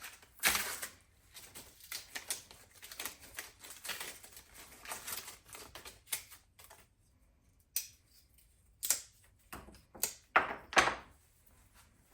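Irregular knocks, taps and clicks of small black walnut workpieces being handled and freed from the machine bed, with quiet gaps between, the router stopped.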